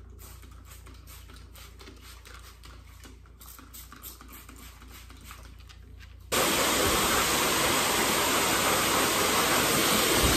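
A dog-grooming hose dryer switches on suddenly about six seconds in and blows a steady, loud rush of air.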